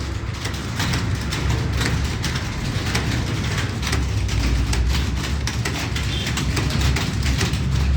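Several computer keyboards clattering with fast, continuous keystrokes as people type a timed typing test, over a steady low hum.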